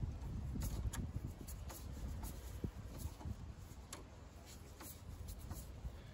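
Screwdriver tightening a hose clamp on a power steering hose: irregular small clicks and ticks over a low rumble.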